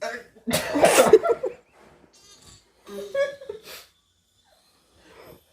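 A person's loud sneeze about half a second in, then a short vocal sound about three seconds in.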